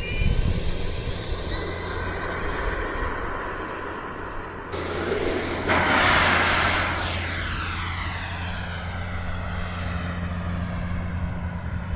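Electric ducted-fan RC jet (E-flite F-18, 80 mm fan on a 6S pack) whining up in pitch as it throttles up for takeoff. About five seconds in it passes close with a loud rush of fan noise, then the high whine slowly fades as it flies away.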